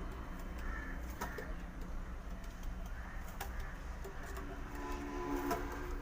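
Caged birds calling: short sharp chirps throughout, with low cooing in the second half, over a steady low hum.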